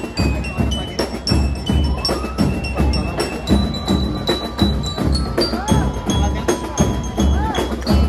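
School marching band playing: bell lyres ring a quick high melody over bass drum, snare drums and cymbals keeping a steady beat.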